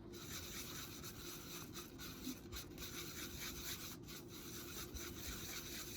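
Faint rubbing and scratching of a paintbrush being worked over a surface, with a few light ticks.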